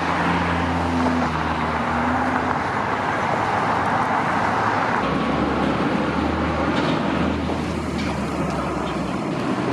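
Road traffic going by: a steady rush of tyres and engines, with the low hum of a passing vehicle at the start and another from about five seconds in.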